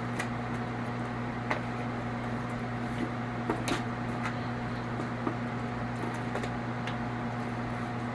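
Bare hands turning and handling raw, mustard-coated chuck steaks in a disposable aluminium foil pan: scattered light crinkles and clicks from the foil and wet meat, over a steady low hum.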